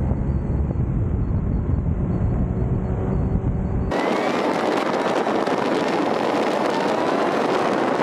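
Motorcycle riding at highway speed: a low rumble of engine and wind buffeting, which cuts off abruptly about four seconds in and gives way to a steady hiss of wind rushing past.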